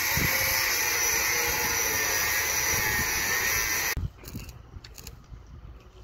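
Handheld angle grinder cutting steel channel: a loud, steady hissing grind that stops abruptly about four seconds in. After it come fainter scattered clicks and crackles.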